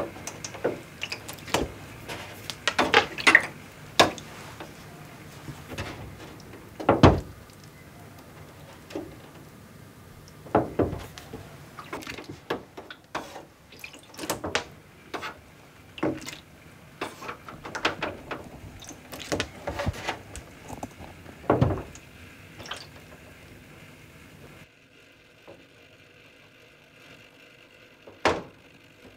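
Photographic print being rocked in a darkroom tray of developer: irregular small splashes and sloshes of liquid, with a few louder ones. It goes quieter about 25 seconds in, with one last splash near the end.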